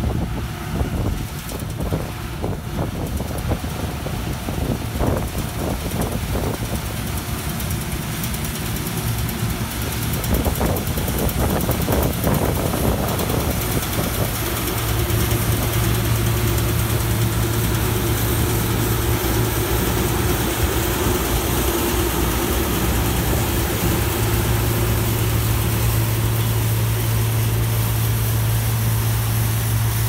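Claas Mega 360 combine harvester running while cutting wheat. A noisy rumble with some buffeting on the microphone changes, from about halfway, into a steady low engine hum that grows a little louder as the machine comes close.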